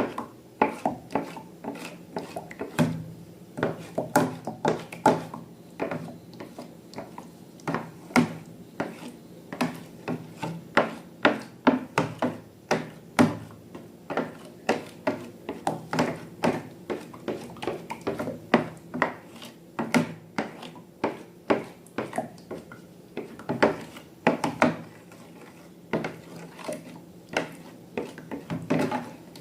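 Irregular taps, clicks and rubbing of objects being handled, several a second.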